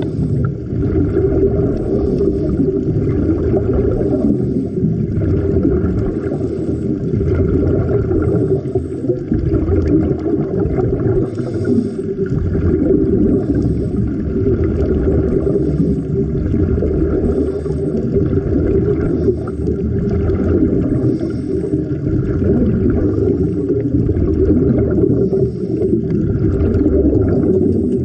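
Muffled underwater ambience heard with the microphone under the surface: a steady low rumble and wash of water with a faint hum in it.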